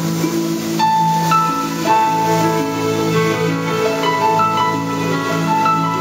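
Soundtrack music of a light and water show: sustained low chords with a piano-like melody of held notes coming in about a second in.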